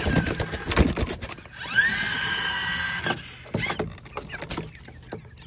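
A small electric motor whines steadily for about a second and a half, rising in pitch as it starts. Scattered knocks and clicks come before and after it.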